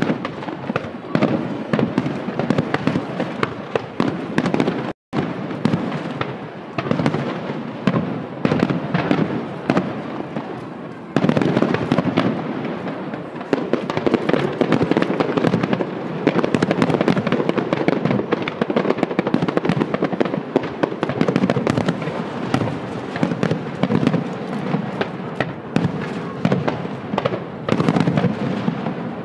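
Aerial fireworks display: shells bursting in rapid, overlapping succession with crackle between the reports. The sound cuts out for an instant about five seconds in, and the barrage grows louder from about eleven seconds in.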